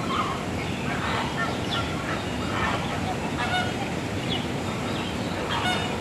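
A flock of flamingos honking: many short calls, some overlapping, over a steady background noise.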